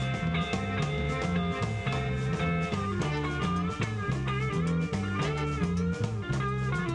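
Live band music: an electric guitar plays a lead line with bent notes over a steady bass line and drums.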